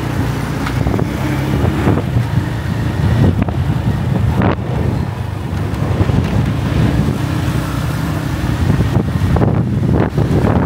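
Road traffic: engines of motor vehicles running close by, a steady low hum with a few brief swells.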